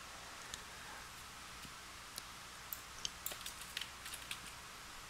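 Faint, scattered clicks of computer keyboard keys and a mouse, about a dozen, mostly in the second half, over a low steady hiss.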